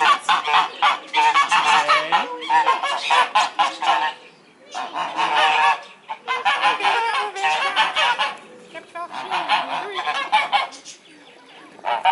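Domestic guard geese honking in rapid, repeated calls, in several bouts with short breaks about four and six seconds in and a lull near the end.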